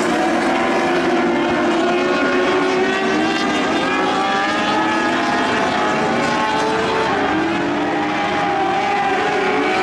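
Several Lightning sprint cars' engines running hard together around a dirt oval, their pitches rising and falling as they rev through the turns.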